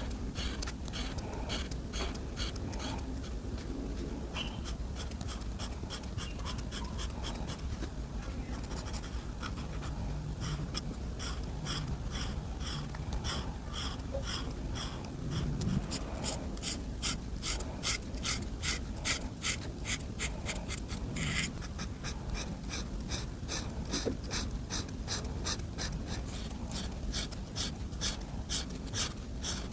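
Coloring strokes scratching back and forth across paper, a steady rhythm of about three strokes a second.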